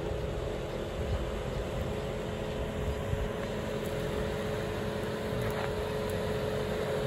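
Suzuki Jimny's 1.5-litre four-cylinder engine running steadily as the 4x4 crawls slowly up a rutted dirt track, with a steady whine over the engine sound. The sound grows slightly louder near the end.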